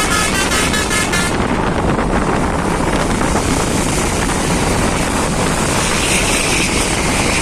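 Telolet basuri multi-trumpet air horn of an Eka Persada bus playing a melody in quick, even pulses, cutting off about a second in. A steady loud rush of wind and road noise follows.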